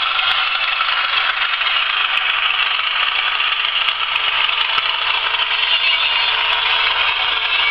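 Hornby Class 31 model diesel locomotive's sound system playing a steady diesel engine sound as the model runs along the track.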